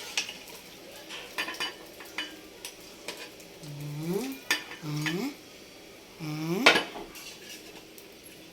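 A metal utensil stirring and clinking against a cooking pot, with a light sizzle. Midway there are three short squeaks that rise in pitch, and a sharp clank just after the last one.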